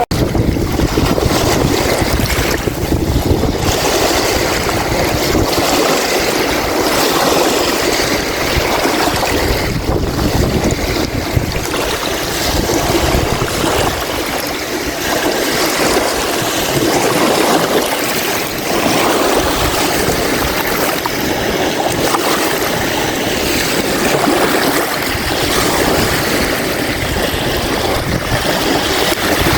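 Strong wind gusting across the microphone, a rumbling buffet that rises and falls, over the wash of wind-driven waves on the lake.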